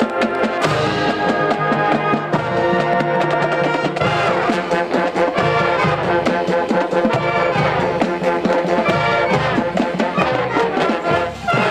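Live band playing a loud piece led by brass, with trumpets and trombones over steady drum hits. The sound drops off for a moment near the end before the band comes back in.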